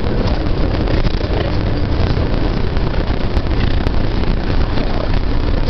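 Bus engine and road noise heard inside the passenger cabin: a steady low rumble with hiss over it.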